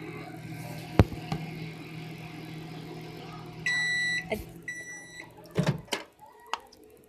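Microwave oven running with a steady hum, a sharp click about a second in, then two long beeps about a second apart as the cycle ends. The hum stops, followed by a few knocks.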